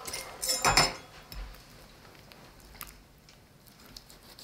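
Kitchenware clinking: one brief clatter about half a second in, then a few faint light taps.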